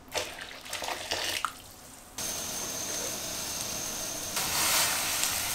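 Water poured into an empty metal wok, splashing unevenly for about two seconds. Then a steady hiss with a faint high whine sets in, growing louder near the end.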